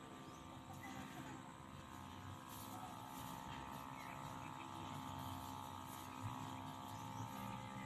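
Small engine running steadily at a distance: an even hum with a steady whine above it.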